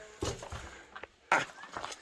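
Footsteps and scuffs on rocky ground, irregular short scrapes and taps, with one louder short sound just past halfway.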